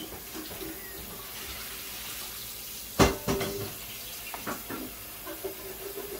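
Spoonfuls of gulgula batter frying in hot oil in a pan, a steady sizzle. A sharp knock about three seconds in, the loudest sound, followed by a few lighter clinks of the spoon.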